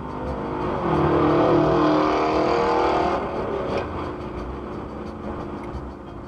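A car engine accelerating on a highway over road and wind noise. Its note climbs over the first second, holds loudest for about two seconds, then eases off.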